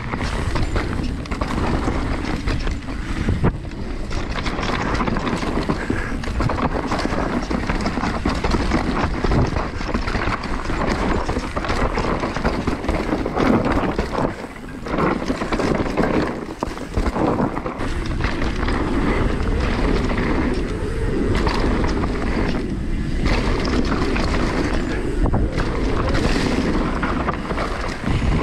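Mountain bike descending a dirt trail at speed: wind rushing over the action camera's microphone and tyres rolling over the dusty ground, with occasional knocks and rattles from the bike.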